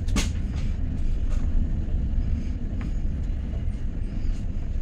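Passenger train running, heard from inside the coach: a steady low rumble with a few short sharp clicks, the strongest right at the start.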